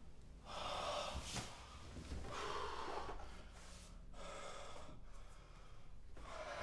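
A person breathing hard: four heavy, gasping breaths about two seconds apart.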